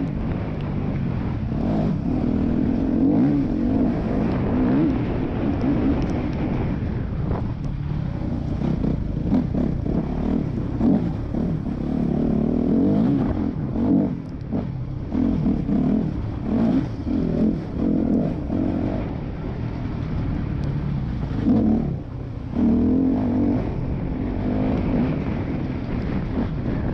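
Yamaha YZ250F dirt bike's single-cylinder four-stroke engine being ridden hard, its note rising and falling constantly with the throttle, with a few brief drops when the rider backs off.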